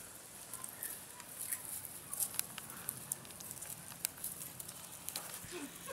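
Faint rustling and scattered small clicks from beagle puppies mouthing a plush toy in dry grass, over a low outdoor hiss.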